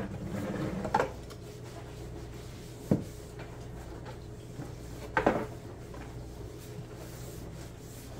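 Paper towel rubbing across a laminate countertop as the counter is wiped, fading after about a second, followed by three light knocks, about a second in, three seconds in and five seconds in. A steady low hum runs underneath.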